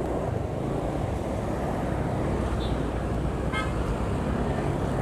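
Steady road traffic noise with a low engine hum, heard while riding in traffic, and a brief horn toot about three and a half seconds in.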